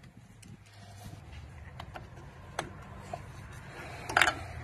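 Light metal clicks and scraping as a screwdriver works a brake-shoe hold-down clip into place on a Nissan Sentra's rear drum brake backing plate, the loudest click about four seconds in, over a low steady hum.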